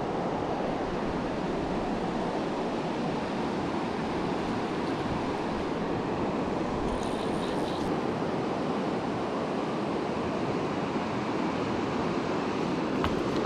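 Steady rush of a clear river's flowing water running over stones.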